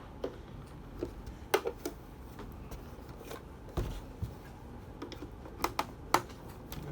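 Scattered light clicks and taps of a screwdriver and the printer's plastic casing being handled while its base screws are taken out, with a few sharper knocks spread through.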